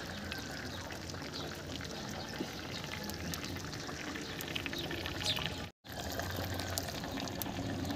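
Chicken and potato curry boiling hard in a kadai over a wood fire: a steady bubbling hiss with small scattered pops. The sound cuts out for a moment about six seconds in.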